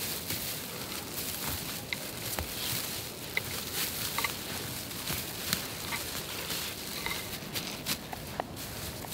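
Spruce branches rustling and crackling as they are gathered and pressed together by hand, with many small sharp clicks from needles and twigs and a few short high chirps.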